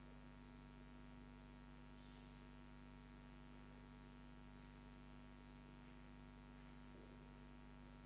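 Near silence: room tone with a steady low hum.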